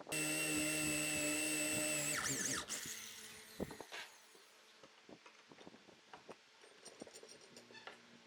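An electric power tool's motor starts abruptly, runs at steady speed for about two seconds, then spins down. Scattered light knocks and clicks follow.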